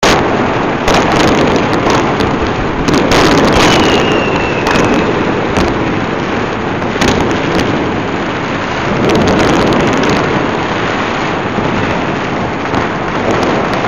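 Many fireworks going off at once in a continuous dense crackle, with sharper bangs scattered through it and a brief high whistle about four seconds in.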